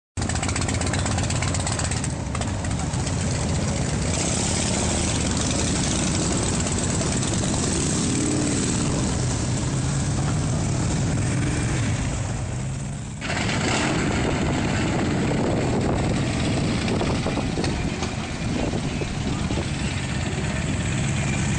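Motorcycle engines running close by, mostly Harley-Davidson V-twins, a steady loud rumble under an even wash of outdoor noise. The sound dips briefly about two-thirds of the way through.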